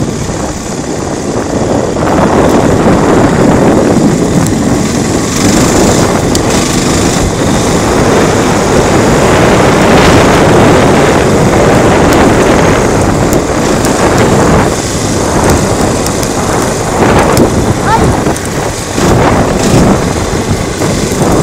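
Trasher 520 quad bike's engine running under way, mixed with wind buffeting the microphone.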